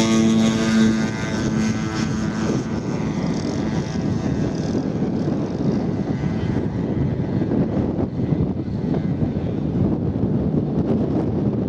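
Engines of a large-scale radio-controlled F-82 Twin Mustang model running at takeoff power as it lifts off. Their clear, pitched tone fades over the first few seconds into a rougher, duller rumble as the model climbs away.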